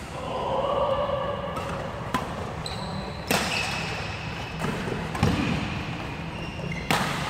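Badminton rally: rackets striking the shuttlecock in a few sharp cracks, about a second apart and then one near the end, with sports shoes squeaking briefly on the court mat in between.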